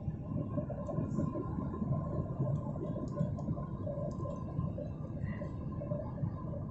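Steady airliner cabin noise in cruise: the low rumble of the jet engines and airflow heard from inside the passenger cabin, with a faint steady hum.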